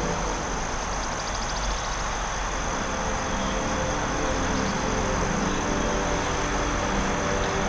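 Steady forest ambience: an even rushing noise like flowing water, with a thin steady high tone over it and a brief fast trill about a second in.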